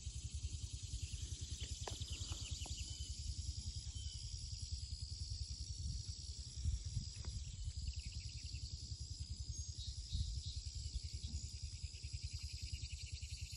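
Insects in a steady high-pitched chorus of trilling, over a low fluttering rumble of wind on the microphone, with a couple of louder bumps about 6 and 10 seconds in.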